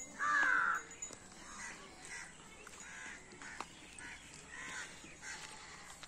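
Crows cawing, one loud caw about a quarter-second in, then a run of fainter caws every half-second or so.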